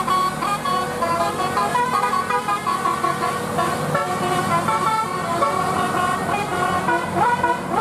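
Telolet basuri musical bus horn playing a fast melody of short stepped notes that hop up and down in pitch.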